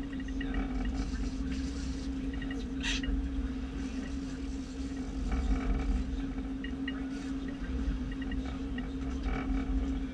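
Charter fishing boat's engine running steadily at low speed, a constant drone over a low rumble. A brief hiss cuts in about three seconds in.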